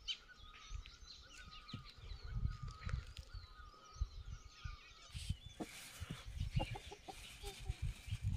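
Small wild birds chirping in the hills, then a rooster clucking in short bursts from a little past halfway in, over a low wind rumble on the microphone.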